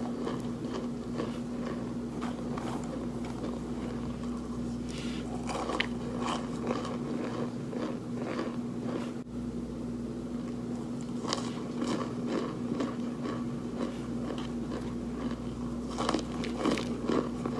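Close-up crunching: something crunchy being bitten and chewed, a run of irregular crackly crunches, over a steady low hum.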